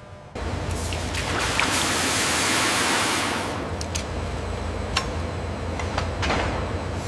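Steady industrial ambience that starts abruptly: a loud rushing hiss over a low rumble, swelling about two seconds in and then easing, with a few sharp metallic clicks scattered through it.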